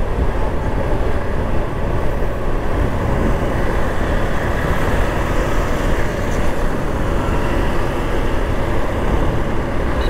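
Steady rush of wind on the action camera's microphone over the running Honda Hornet 160R's single-cylinder engine, cruising at highway speed on a motorcycle.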